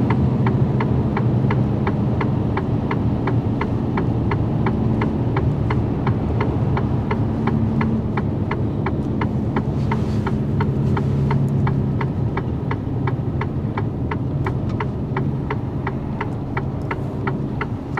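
Truck's indicator ticking steadily, about three ticks a second, over the steady drone of the engine and road inside the cab. The engine brake is engaged on level 1 as the lorry slows for a left turn.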